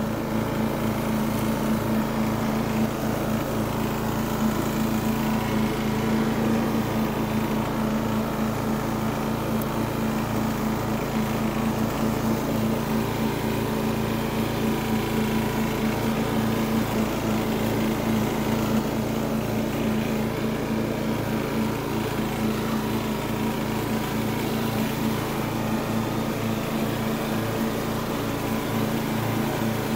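Riding lawn mower engine running at a steady speed while mowing, a constant drone that holds one pitch.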